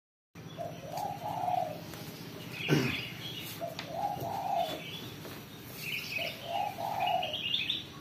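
Spotted dove cooing, three phrases a couple of seconds apart, with small birds chirping higher in the background. A single loud thump about three seconds in.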